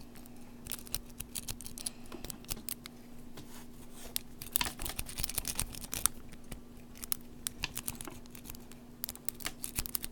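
Makeshift rake and tension tool jiggling in the keyway of a laminated padlock: a run of irregular small metal clicks and scrapes as the pins are raked.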